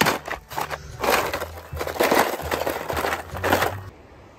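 Die-cast toy cars crashing and clattering together in a loud, irregular burst of knocks and crackle that starts suddenly and stops about four seconds in.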